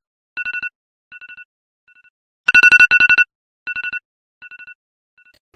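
Phone alarm beeping: clusters of rapid electronic beeps, about ten a second, on one steady two-note pitch. A loud cluster comes about two and a half seconds in, and fainter, shorter clusters follow it and die away.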